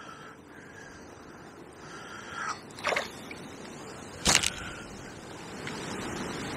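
Steady gusting wind noise, with two sharp clicks about three and four and a half seconds in, the second the louder.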